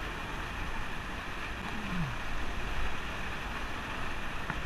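Steady rush of whitewater churning below a small waterfall in a river rapid, heard close to the water surface.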